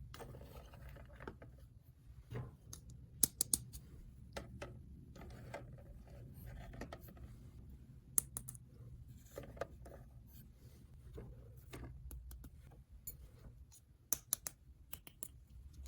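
Small plastic toy pieces being handled: scattered light clicks and taps, with small clusters about three seconds in, around eight seconds in and near the end, over a faint low hum.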